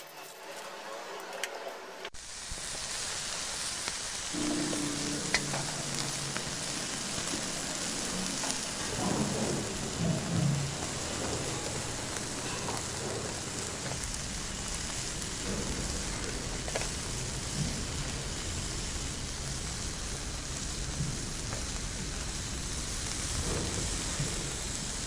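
A steady rain-like hiss that starts suddenly about two seconds in, with faint low tones beneath it.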